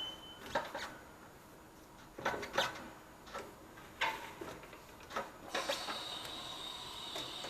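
Clanks and knocks of a wheel being handled on a wheel balancer, then a steady high whine from about five and a half seconds in as the balancer spins the wheel.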